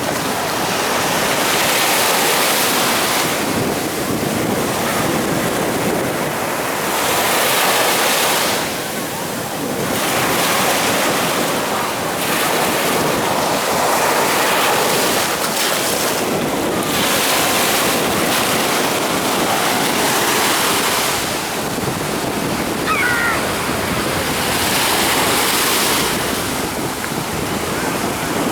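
Storm waves breaking and rushing onto the shore, swelling in surges every few seconds, with wind buffeting the microphone.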